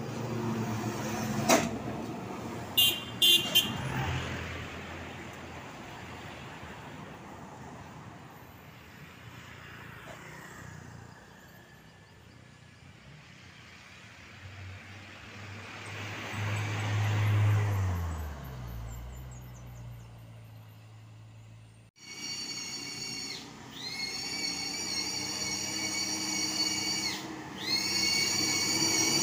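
Diesel Hino trucks passing on a steep mountain road, with short horn toots about three seconds in. A motorcycle passes in the middle. Near the end, a climbing truck's engine runs with a high whine that drops out twice.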